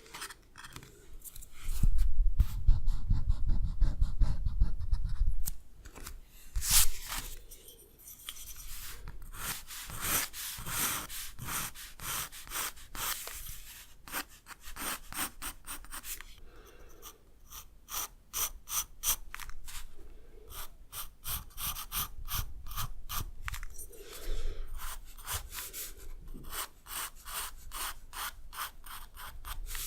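Quick back-and-forth strokes of a drawing tool rubbing and rasping on paper, a few strokes a second, in runs with short pauses. About two seconds in, a loud low rumble lasts some three seconds.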